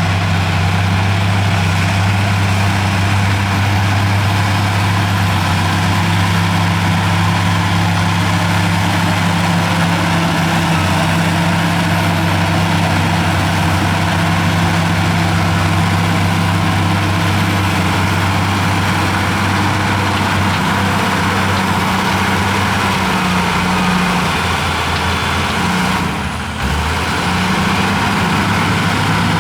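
Heavy earthmoving machine's diesel engine running steadily under work, with a brief dip in loudness and a change in engine note near the end.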